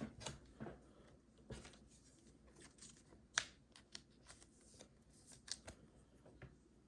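Faint, scattered rustles and soft clicks of Pokémon trading cards being handled, the sharpest tick about three and a half seconds in.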